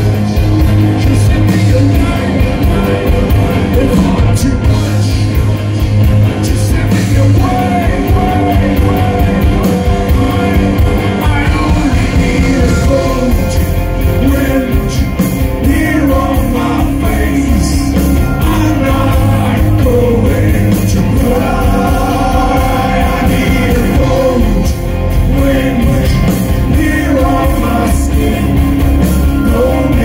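Live rock band playing at full volume: electric guitars, bass guitar and drum kit, with a lead voice singing over them.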